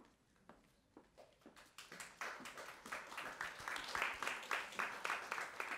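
Audience applauding. It starts with a few scattered claps and swells into steady clapping after a second or two.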